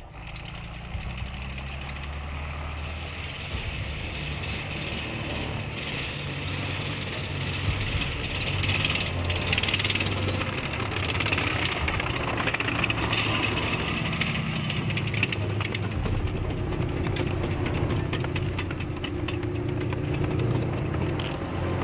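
A Soviet WWII-type tank running and moving, its engine's rumble rising and falling with the revs while the steel tracks clank and rattle. It gets louder from about eight seconds in.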